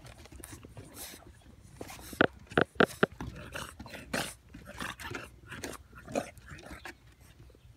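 English Bulldog puppies at play: a quick run of three or four short, loud barks about two seconds in, followed by softer short sounds as they keep scuffling.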